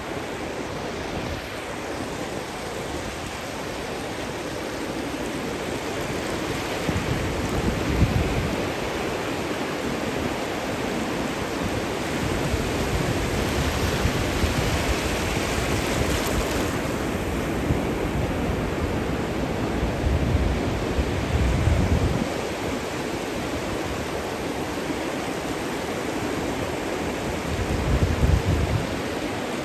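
Ocean surf breaking and washing in close to the shore, a continuous rush of water that swells louder several times as waves come in.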